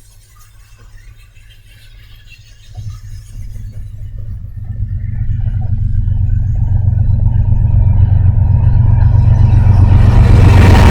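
A Rockhawg 1150 rock-milling machine at work: faint at first, then from about three seconds in a low, heavy rumble that builds steadily louder.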